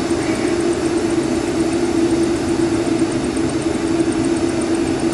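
Boeing 747 freighter's four jet engines running steadily as the aircraft moves slowly along the runway: an even drone with a constant low hum, holding level without spooling up.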